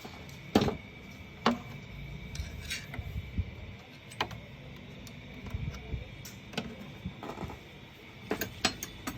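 Scattered sharp clicks and knocks of a screwdriver and the metal and plastic parts of a paper shredder being handled as it is taken apart, the loudest about half a second in and several close together near the end.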